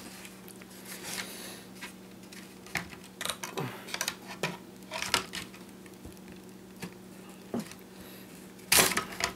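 Scattered clicks and knocks of hard plastic as the battery is pulled out of a DJI Phantom 2 Vision quadcopter and the drone's shell is handled, with the loudest knocks near the end.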